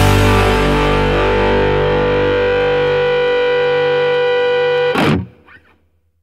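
Rock music: a distorted electric guitar chord held and ringing out as it slowly fades, ending with a short noisy hit about five seconds in, then cutting off.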